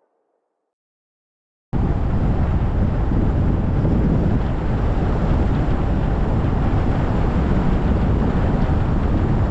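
Near silence, then about two seconds in a steady, loud rush of car driving noise cuts in abruptly: the rumble and hiss of a car running on wet roads in light rain.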